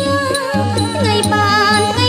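Traditional Khmer wedding music: a wavering melody over a steady low drone, with a light high tick about twice a second.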